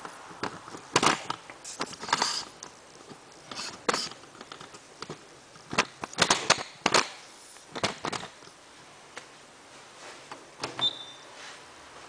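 Front-loading washing machine knocking and clattering irregularly before its fast spin has got going, with no steady spin noise yet. The loudest knocks come around the middle, and a short high tone sounds near the end.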